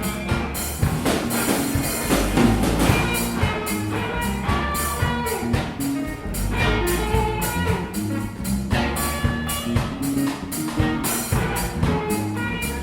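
A small band playing live, a drum kit keeping a steady beat under sustained low notes and higher melodic instrument lines.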